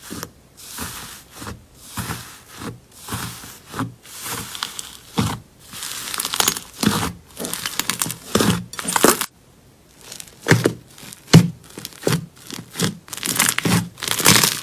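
Thick green slime being squeezed and kneaded by hand: a quick run of wet squelches and crackling, tearing sounds, two or three a second, with a short pause a little past the middle.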